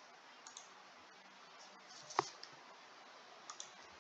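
A few sharp computer mouse clicks over faint hiss, the loudest about two seconds in.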